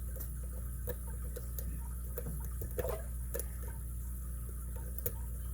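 Faint, scattered metallic clicks and scrapes of a lock pick and tension wrench working the pins inside a brass pin-tumbler padlock. A steady low hum runs underneath.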